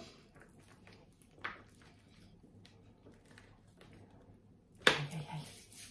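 Hands working at a plastic packet of quark (tvorog), trying to open it: faint handling noises, a small click about a second and a half in, and a sharp crackle of the packaging near the end, followed by a short voiced sound.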